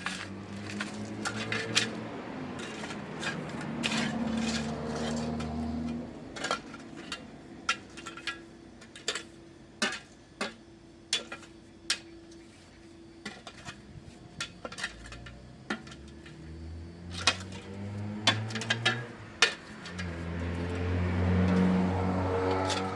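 Scattered sharp clinks and knocks, with a low pitched hum in the first few seconds and again over the last several seconds.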